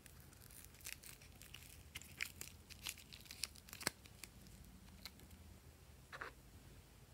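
Faint, sharp crackling and crinkling clicks as fingers handle and press a stiff watermelon-slice clay topping, with one short rasp about six seconds in.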